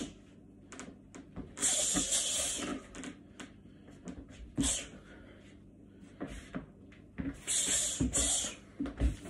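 Several sharp hissing breaths forced out through the teeth in time with kung fu strikes, the longest lasting about a second, with boots scuffing and stamping on the floor between them.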